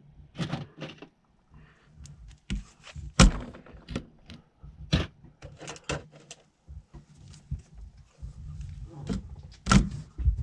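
Plastic puzzle cubes being handled: scattered clacks and knocks as they are picked up, set down and pushed against one another. The loudest are a few sharp knocks about three, five and ten seconds in.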